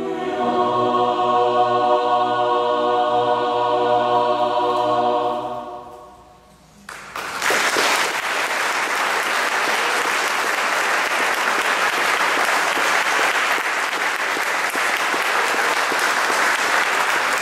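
Mixed chorus holding its final chord, which fades away about five or six seconds in. After a moment of near quiet, the audience breaks into steady applause that lasts to the end.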